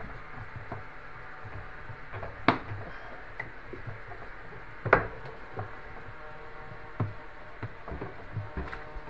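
Scattered clicks and knocks of tools and parts being handled while the door seal of a front-loading washing machine is being replaced, with two sharp, louder clicks about two and a half and five seconds in.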